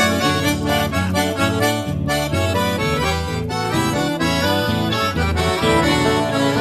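Instrumental break of a gaúcho vaneirão: accordion playing a fast melody over a steady, rhythmic bass accompaniment.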